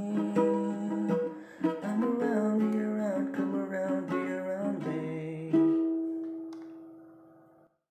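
Ukulele strummed in a steady rhythm through the chorus chords E, B, F#m7 and F#m. About five and a half seconds in, a last chord is struck and left to ring out, fading away.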